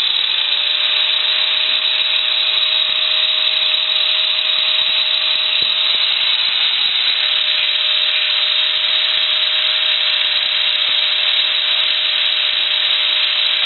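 Angle grinder with a thick grinding disc running continuously and grinding the burred cut end of a 12 mm steel rod to round it off: a loud, steady hiss over a constant whine.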